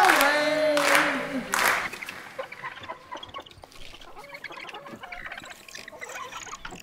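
A group of voices holds a sung note together, which ends about a second and a half in. Then comes quieter crowd noise: scattered clapping and voices, fading down.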